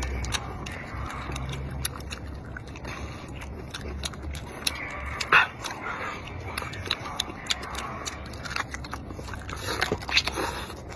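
Close-up eating sounds: a man biting and tearing meat off a braised lamb leg bone and chewing with many wet smacking, clicking mouth noises, with one louder smack about five and a half seconds in.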